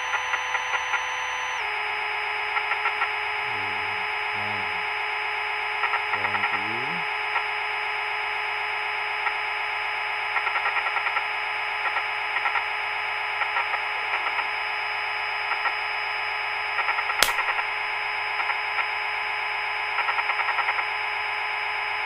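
Simulated milling-machine spindle sound from the SwanSoft CNC simulator: a steady electronic buzzing hum that drops slightly in pitch about a second and a half in. Short bursts of rapid ticking recur every few seconds, and there is one sharp click late on.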